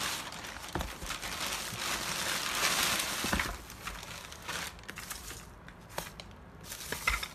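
Plastic packaging crinkling and rustling as a parcel is unpacked by hand, loudest in the middle, with a few light knocks of items being set down.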